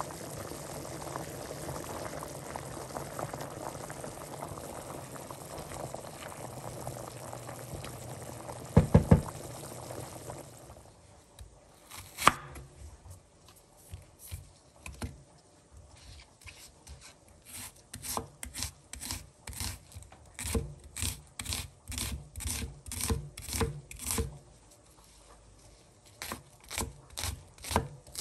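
Pot of egg noodles at a rolling boil, bubbling steadily, with a quick run of loud knocks about nine seconds in. Then a chef's knife chopping an onion on a wooden cutting board: sharp, even strikes about two a second, with a short pause near the end.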